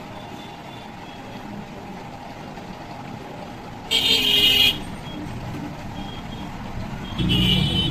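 Street traffic with a vehicle horn tooting twice: a short blast about four seconds in, and another near the end over the low rumble of a passing engine.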